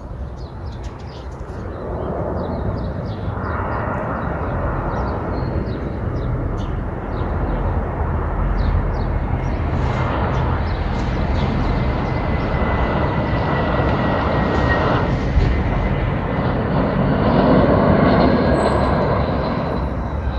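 Airbus A320 jet airliner landing: a steady jet rumble with a thin high engine whine, growing louder about two seconds in and loudest near the end.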